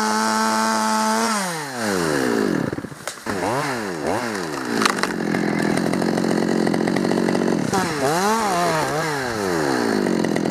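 Chainsaw engine held at high revs, then throttled off so the pitch falls, revved up and down several times, and dropping into a rougher, lower note for a few seconds as it cuts into wood under load, before more revs and a fall near the end.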